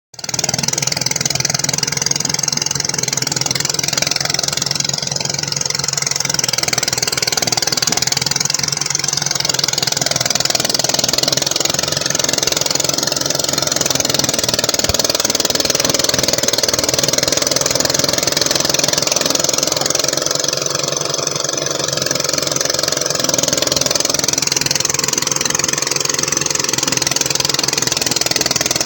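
A small engine running steadily at a constant speed, with a strong hiss over its low hum.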